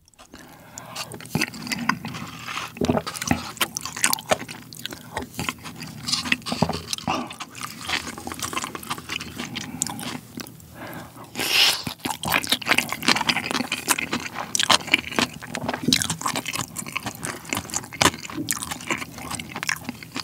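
Close-miked eating sounds: wet chewing and mouth noises of a person eating beef tartare bibimbap, with many small clicks and one louder burst about eleven seconds in.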